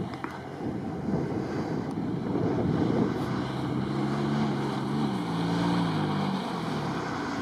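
A competing off-road vehicle's engine running on the course, its note coming through about three seconds in and dropping in pitch in steps before fading, under a steady rumble of wind on the microphone.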